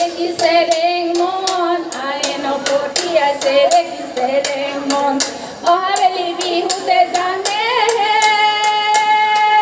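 Women singing an Assamese Jeng Bihu song over steady rhythmic clapping, about three claps a second. Near the end the voice holds one long note.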